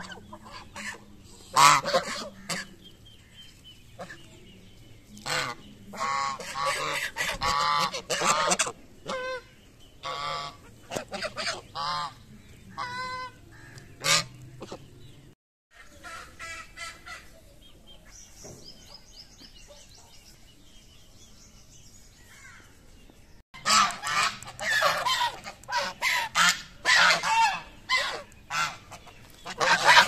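A flock of domestic geese honking, many short calls overlapping. The calling goes quiet for several seconds around the middle and then picks up again, loud and dense, towards the end.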